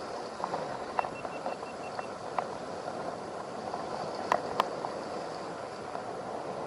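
Steady wind and surf noise on the microphone, with a few sharp clicks and taps scattered through it.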